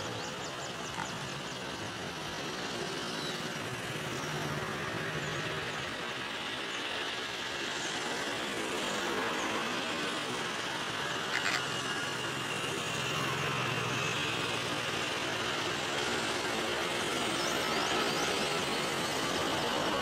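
Steady outdoor background noise, a hiss with a faint low hum that swells at times. There are a couple of sharp clicks about eleven seconds in and faint high-pitched ticks near the end.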